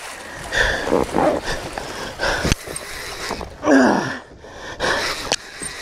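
A man's strained grunts and groans, three or four of them, each sliding down in pitch, as he hauls against a heavy fish on a bent rod. A sharp click comes about halfway through.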